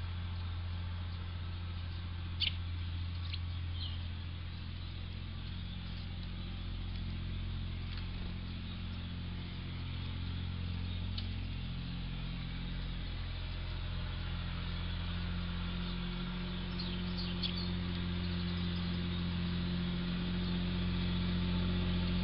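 A steady low hum with a faint hiss runs throughout. Over it come a few brief, high chirps from small birds, about two to four seconds in and again around seventeen seconds in.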